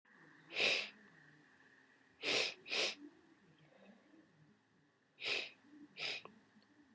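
A person with a head cold sneezing wetly: five short, sharp sneezes, two of them in quick succession a few seconds in.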